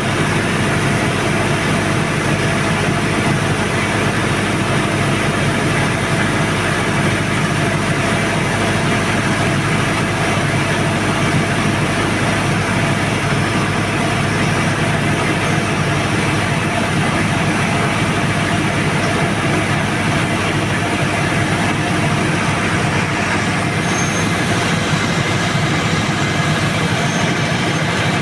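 Tsuzumi TDG 62.5 kVA silent diesel generator set running steadily, its four-cylinder turbocharged 4108ZD diesel engine holding an even speed.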